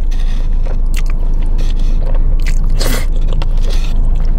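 Close-miked eating: a mouthful of palabok rice noodles in sauce being slurped and chewed, with many short wet mouth clicks and one louder, longer noisy burst about three seconds in.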